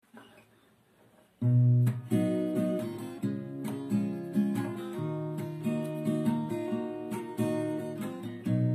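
Acoustic guitar playing the song's introduction, strummed chords with picked notes, starting with a loud strum about a second and a half in.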